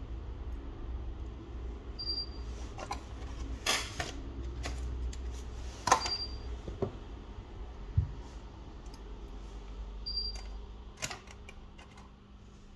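Small clicks and taps of hand tools on a smartphone's parts as it is taken apart, scattered and irregular, over a low steady hum. A short high beep repeats about every four seconds.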